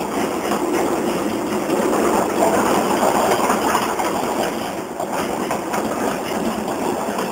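Passenger train coaches passing close by, a steady noise of wheels running on the rails that grows a little louder a couple of seconds in.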